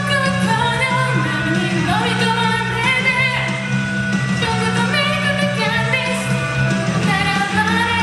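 A woman singing a pop-rock song into a microphone over a karaoke backing track, her amplified voice filling a large hall.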